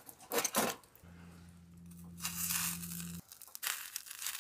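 A few light taps on the wire grill grate, then a hissing crackle from about two seconds in as fresh trout is laid on the hot grate over charcoal. A steady low hum runs beneath it for a couple of seconds and stops.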